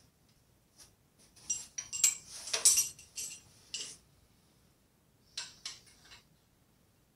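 Small metal hand tools clinking and clattering as they are picked up and handled: a quick run of sharp clinks for about three seconds, then a few more after a short pause.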